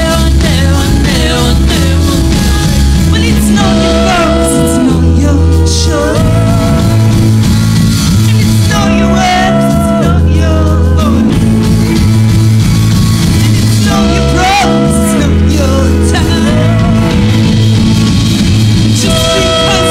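A live rock band playing a song: a woman's sung lead vocal over electric guitar and keyboard, with steady low bass notes underneath.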